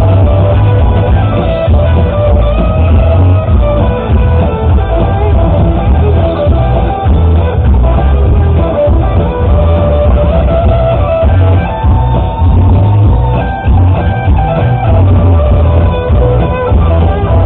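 Loud rock music with guitar, drums and a heavy pulsing bass line.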